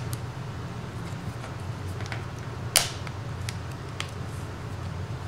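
Scattered light clicks and taps from a smartphone's mid-frame being handled and pressed onto the phone, with one sharper click a little past halfway, over a steady low hum.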